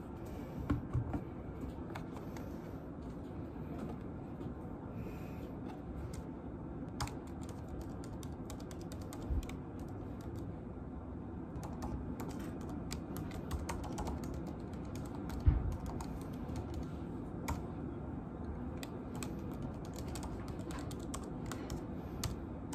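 Typing on a laptop keyboard: quick, irregular key clicks over a low, steady room hum, with one dull thump about two-thirds of the way through.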